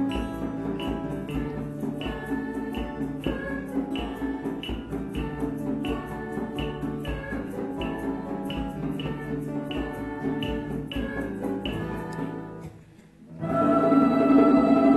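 Music with a steady beat of about two strokes a second; it breaks off near the end, then a louder, fuller passage begins.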